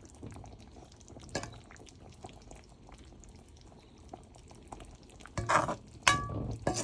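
Pot of fish curry simmering with small clicks of a spoon. About five seconds in, louder stirring with metal clinking against the pot.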